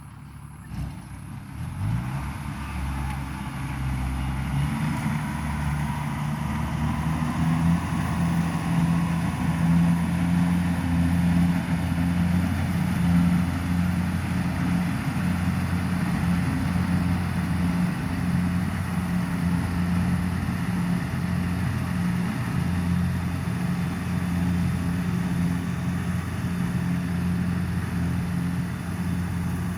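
An engine revs up about a second in, then runs steadily at a high working speed.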